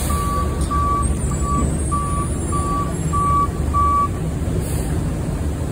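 A refuse truck's reversing alarm beeps about eight times, a little under two beeps a second, and stops about four seconds in, over the steady low rumble of the truck's engine.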